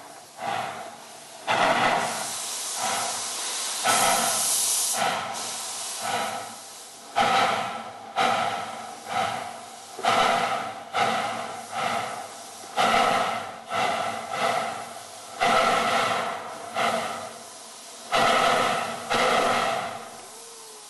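Narrow-gauge steam locomotive exhaust chuffing slowly, sharp beats about one a second each dying away, over a steady hiss of steam.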